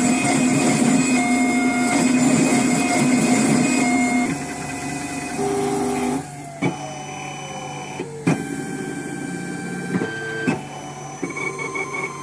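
Sirona CEREC 3D milling machine grinding a dental crown block with two water-cooled burs: a loud, steady whine for about four seconds. It then drops to quieter motor running, with a tone falling in pitch and a few sharp clicks as the milling winds down.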